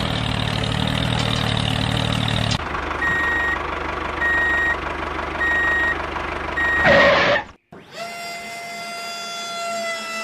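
Dubbed truck sound effects: a heavy engine running, then a reversing alarm beeping four times about a second apart. A brief loud burst and a moment's dropout follow, then a steady high tone that wavers slightly, like a siren.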